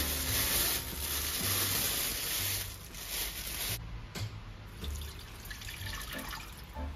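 Water running from a tap into a sink in a steady stream. It drops to a weaker, uneven trickle a little under four seconds in.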